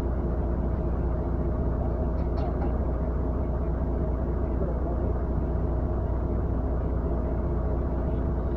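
An engine running steadily at constant speed, a low drone that does not change.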